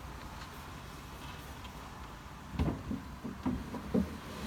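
Drawers being put back into a wooden modular bookcase unit: a few short wooden knocks and clunks in the second half.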